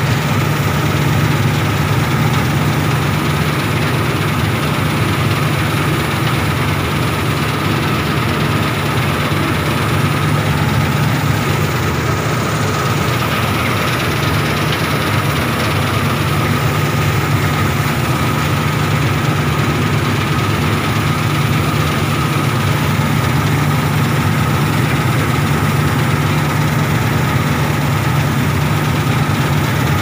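Preet 987 combine harvester running under load while harvesting wheat, heard from the operator's seat: a loud, steady engine and machinery drone with a constant high whine through it.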